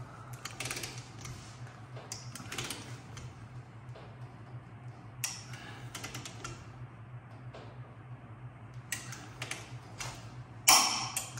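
A torque wrench's ratchet clicking in short runs as the lower ball joint castle nut on a Toyota Tundra steering knuckle is tightened toward 107 ft-lb. There is a louder clack near the end, over a steady low hum.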